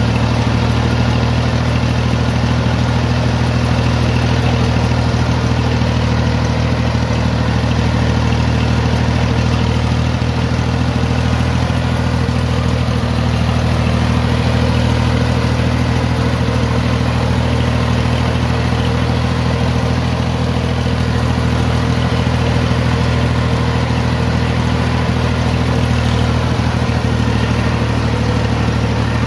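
Single-cylinder diesel engine of a xe cày farm truck running steadily at an even pitch.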